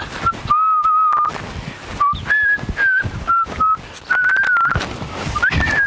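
A person whistling a tune: short phrases of clear held notes that step up and down. Clicks and knocks run underneath throughout.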